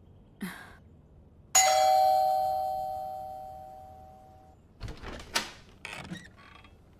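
A doorbell rings once, two steady tones sounding together and fading over about three seconds. A few seconds later come short clicks and a knock as the wooden door's latch is worked.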